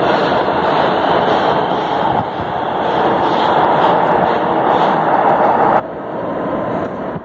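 São Paulo Metro train running past along the station platform: a loud, steady rumble of steel wheels on the rails and car bodies moving at speed. The noise drops off sharply about six seconds in.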